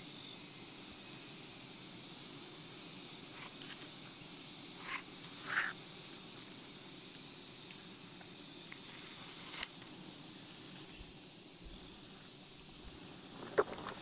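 Quiet forest ambience with a steady high insect drone, broken by a few short rustles of rope being handled against a tree trunk, about five seconds in and again near ten seconds.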